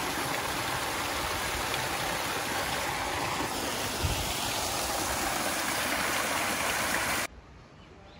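Water pouring from spouts into a stone pool: a steady splashing rush that cuts off suddenly about seven seconds in.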